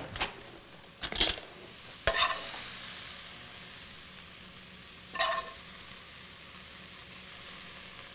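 A metal spoon clinking and scraping about four times as seared scallops are scooped out of a hot skillet onto a plate. A faint sizzle from the pan runs underneath.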